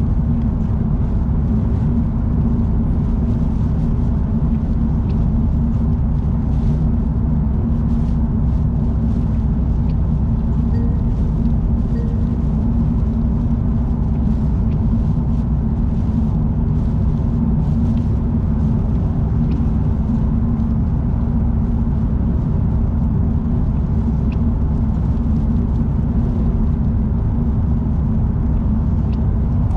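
Car driving steadily on an expressway: an even, unbroken low road-and-engine rumble, with faint scattered ticks.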